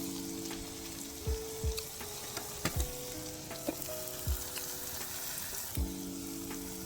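Onions, tomatoes and squash sizzling in butter in a pot, with a few dull knocks as the food is stirred.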